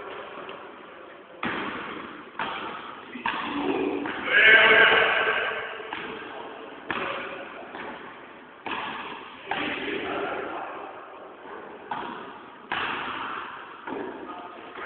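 Basketballs bouncing and striking in a gymnasium: sharp thuds at irregular intervals, about one every second or so, each ringing on in the hall's echo.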